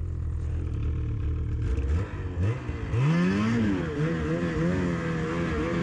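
Snowmobile engine running low and steady, then revving up sharply about two seconds in and rising and falling in pitch as the throttle is worked, with a steady hiss behind it.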